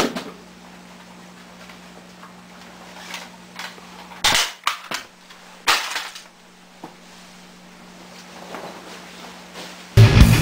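A loud sharp bang at the start, then a quick cluster of four or five sharp bangs about four to six seconds in, over a steady low hum. Loud music starts just before the end.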